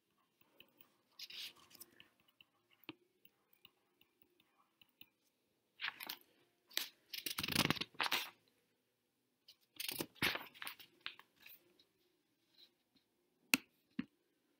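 Faint scratching and tapping of a stylus writing on a tablet screen, in short irregular bursts with pauses, and a couple of sharp clicks near the end.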